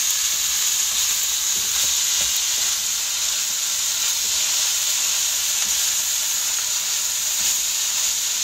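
Fried rice with diced ham and mixed vegetables sizzling steadily in a hot nonstick wok while it is stirred and turned with a plastic spoon.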